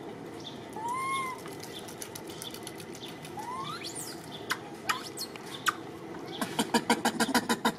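Baby long-tailed macaque giving short whimpering coo calls, each rising and falling or sliding upward. A fast run of sharp clicks, about ten a second, follows near the end.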